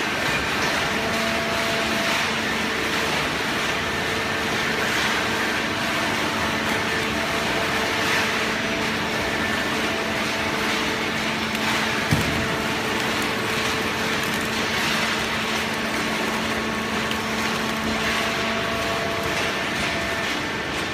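Hydraulic cardboard baler running: a steady machine hum of motor and hydraulic pump, with several steady tones over a constant rush of noise, and one sharp knock about twelve seconds in.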